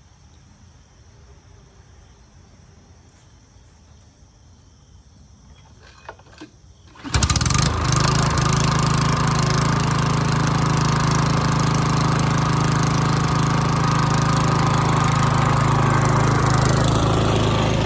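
Quiet ambience, then a couple of light clicks and the 2017 Craftsman 28 Pro Series walk-behind mower's engine starts suddenly about seven seconds in, catching at once. After that it runs at a steady speed.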